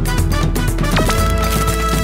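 Background music with a steady beat and held tones, with a brief sliding tone about a second in.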